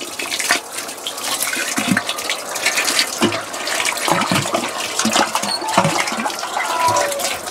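Chicken-manure and water slurry sloshing and splashing irregularly in a concrete mixing tank as it is churned by a hand-turned metal paddle mixer and a wooden pole, mixing the feed for a biogas digester.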